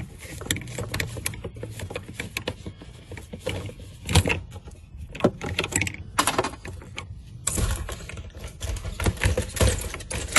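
Irregular taps, knocks and clatter of hand tools and metal and plastic parts being worked at a car's fuel tank during fuel pump removal, with a few louder knocks and a rattly stretch near the end.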